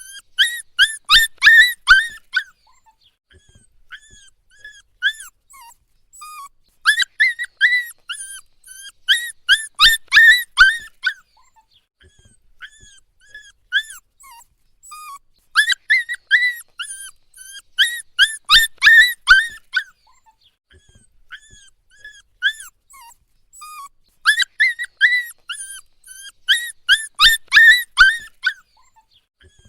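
Puppy whining: short, high-pitched cries that fall in pitch, coming in loud runs of rapid whines about every eight or nine seconds, with softer single whimpers in between.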